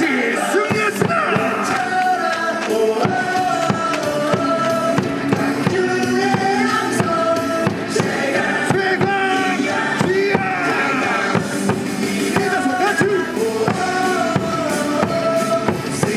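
Upbeat cheer song with a steady drum beat and a melody, played over a baseball stadium's loudspeakers.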